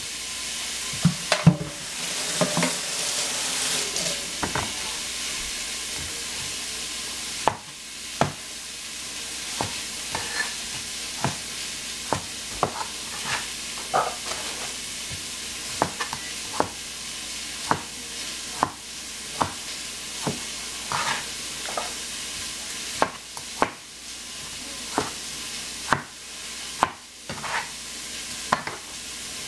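Green cauliflower sizzling steadily as it stir-fries in a pan, with a spatula knocking and scraping against the pan about once a second.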